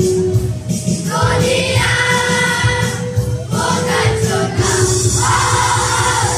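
Children's choir singing a patriotic song together, over backing music with a steady beat.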